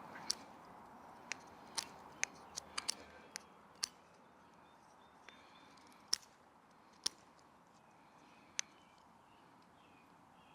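Swiss Army knife blade whittling a wooden wedge. Sharp, irregular clicks as shavings are cut off, close together in the first few seconds and sparser later.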